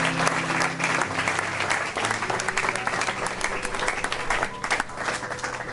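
Congregation applauding in a church hall, the clapping thinning out near the end.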